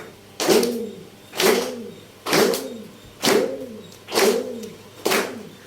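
Goatskin-bottomed one-string plucked drum of the gopichand type, plucked about once a second, six times. Each pluck gives a twangy tone that bends up and back down in pitch.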